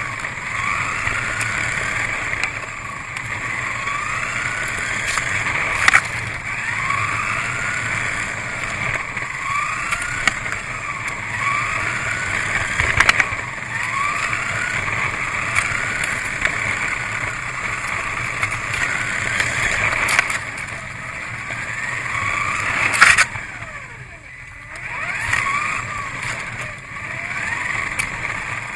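Kyosho Mini-Z RC car's small electric motor whining, its pitch rising again and again as the car accelerates out of corners and dropping off between, with a few sharp clicks and knocks, the loudest about six, thirteen and twenty-three seconds in.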